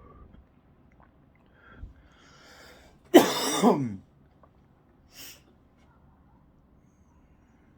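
A person smoking weed draws a breath, then gives one loud, rough cough lasting under a second, falling in pitch; a shorter, fainter breathy sound follows about two seconds later.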